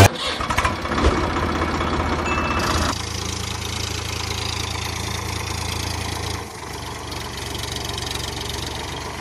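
A toy model tractor running with a steady low engine-like hum, with some clicking in the first few seconds. It gets quieter in two steps, about three seconds in and again later, as it moves away.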